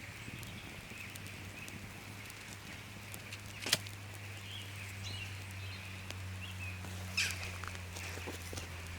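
Campfire crackling: scattered small ticks and two sharp pops, the louder about four seconds in and the other near seven seconds, over a steady low hum.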